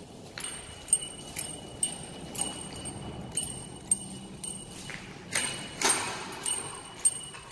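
Footsteps on a bare concrete floor, walking at about two steps a second, each step with a light metallic jingle, and a couple of longer scuffs near the end.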